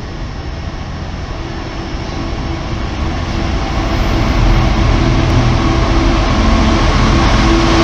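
A Freightliner Class 66 diesel locomotive hauling a container train approaches through the station without stopping. Its engine drone and rumble grow louder over the first four to five seconds, then hold steady as it draws near.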